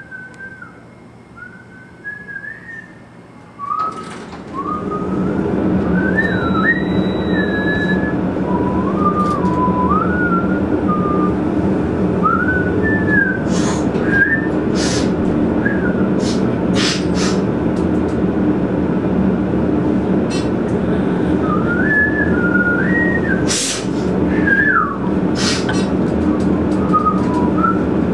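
A man whistling a wandering tune. About four seconds in there is a thump, and then a steady low elevator hum starts and runs under the whistling. A few sharp clicks come through the middle and near the end.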